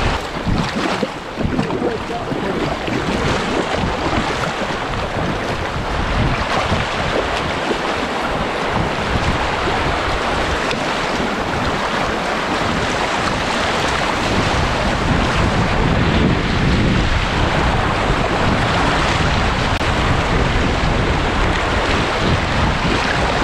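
River water rushing and churning around a kayak sitting in a standing wave, with wind buffeting the microphone. A loud, steady rush with no breaks.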